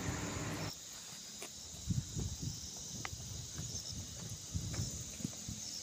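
Footsteps on a stony mountain trail, irregular soft thuds with an occasional click, over a steady high buzz of insects. A broad rushing noise stops suddenly just under a second in.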